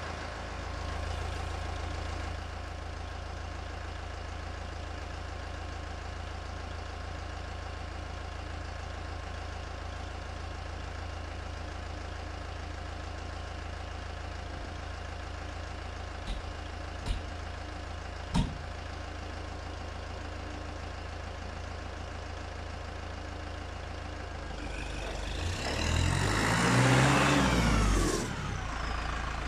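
Massey Ferguson 2435 tractor's diesel engine running steadily, then growing loud, its pitch bending up and down, as the tractor drives up close near the end. Three sharp knocks a little past halfway.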